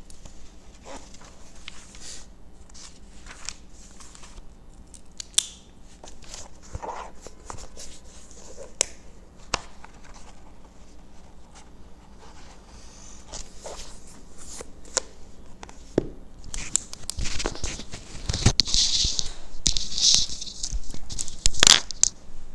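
Handling noise from a notebook and pen: scattered clicks and paper rustles. In the last few seconds come louder clothing rustles and knocks as the person gets up and moves while wearing a clip-on lapel microphone.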